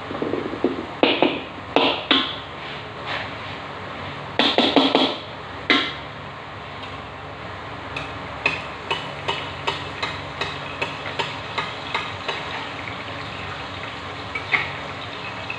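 Metal spatula scraping and clanking against an aluminium wok as fried rice is stir-fried, in irregular loud strokes over the first six seconds. After that comes a run of lighter, evenly spaced ticks, about two a second.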